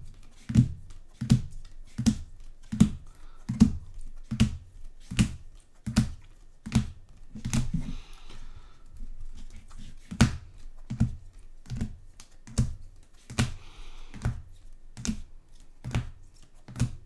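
Trading cards being set down on a table one after another: a sharp tap with a dull thump about every three quarters of a second.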